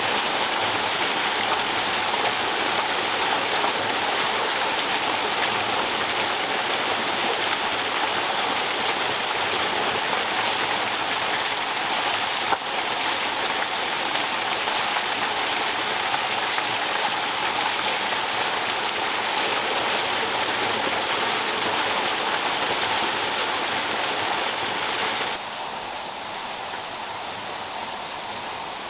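Small waterfall splashing steadily into a pool, with one brief knock about halfway through. The water sound drops away suddenly near the end, leaving a quieter steady outdoor hiss.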